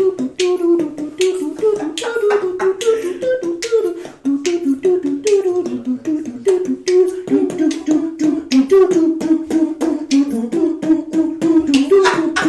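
A man beatboxing: a hummed melody of short, stepping notes over a steady run of sharp mouth clicks and snares.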